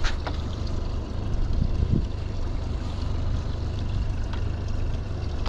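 Boat's motor running steadily with a low hum, with a sharp click right at the start and a short low thump about two seconds in.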